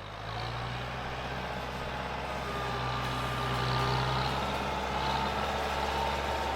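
Tractor engine running steadily with a low hum, building up in the first moment and holding.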